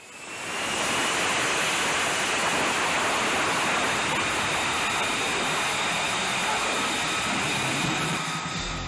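Lockheed Martin F-35B jet engine running on a carrier deck: a steady rush of jet noise with a faint high turbine whine, fading in over the first second.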